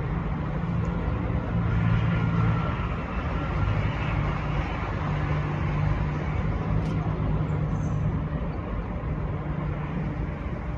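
Steady low motor rumble with an engine-like hum, like road traffic.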